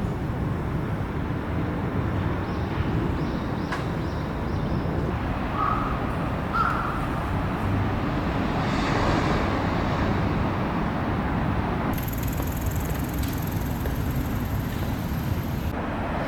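Steady rumble of city traffic, with a crow cawing twice about six seconds in. A thin high whine comes in about twelve seconds in and stops just before the end.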